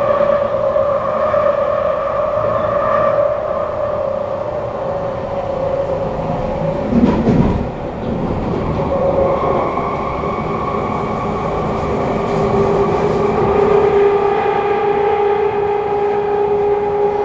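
Kawasaki C151 metro train heard from inside the carriage: the whine of its GTO-VVVF traction inverter over wheel-on-rail running noise. The whine sinks a little over the first few seconds; a brief loud thud comes about seven seconds in, and from about ten seconds a new whine rises slowly in pitch.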